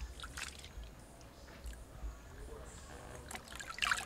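Water sloshing and dripping in a steel bowl as a carved watermelon is handled in it and lifted out, with scattered wet squishes and a cluster of sharper splashes near the end.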